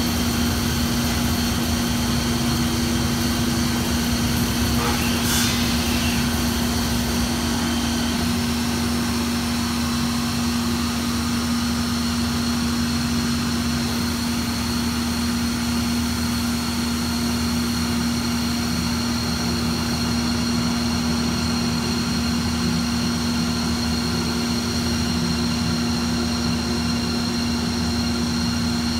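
Automated Locatelli wood lathe turning an ash baseball bat: steady machine running with a constant low hum and a high whine, under the noise of the cutting.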